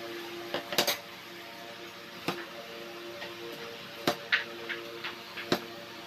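Kitchen knife knocking on a small plastic cutting board as a peeled hard-boiled egg is sliced: a handful of sharp, separate knocks about a second or more apart, the loudest a double knock about a second in. A faint steady hum lies underneath.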